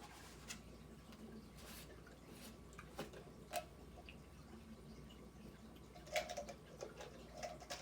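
Faint handling sounds: scattered light taps, clicks and rustles as a newly bought item is picked up and shown, with a denser run of crinkly taps about six seconds in.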